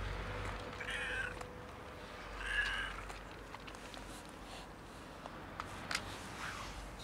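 Long-haired tabby cat meowing twice, about a second in and again about two and a half seconds in. A few faint clicks follow near the end.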